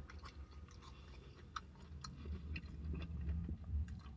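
Person chewing buttery fried cheese curds with the mouth working wetly: faint, scattered smacking clicks over a low steady hum.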